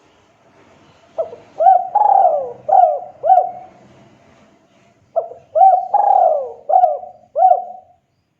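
Spotted dove (tekukur) cooing its call twice, each phrase a run of about five hooked coo notes, with a short pause between the two phrases.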